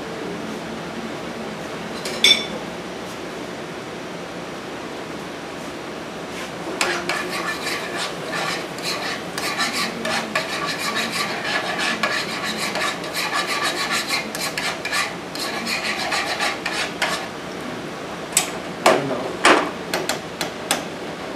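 A utensil stirring and scraping in a frying pan on a gas stove, a fast run of scrapes lasting about ten seconds, over a steady hiss. One sharp clang comes about two seconds in, and a few loud knocks on the pan near the end.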